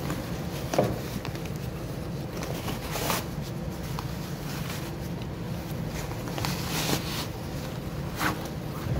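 Nylon rucksack fabric and webbing straps rustling and scraping as they are handled, with a few short clicks, over a steady low hum.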